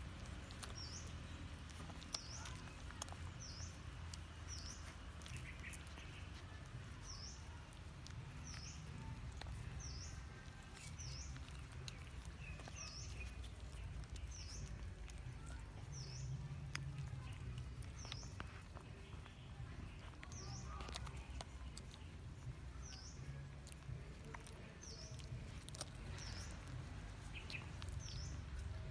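Puppies suckling at their mother's teats, with scattered soft smacking clicks. A small bird gives a short high chirp roughly once a second over a low background rumble.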